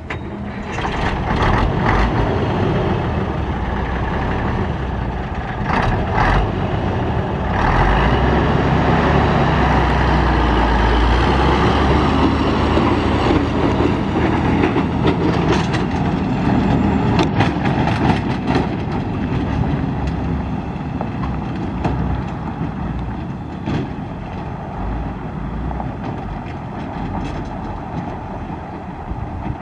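1973 Mack RL600L dump truck's diesel engine running as the truck drives off over gravel. It is loudest as the truck passes close, then grows gradually fainter as it moves away, with a few sharp knocks along the way.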